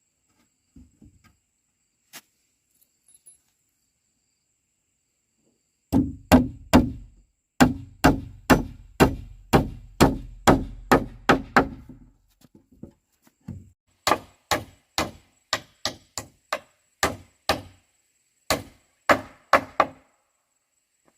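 A tool striking wood in a fast series of sharp blows, about two a second, in two runs of several seconds with a short break between that holds a few light taps.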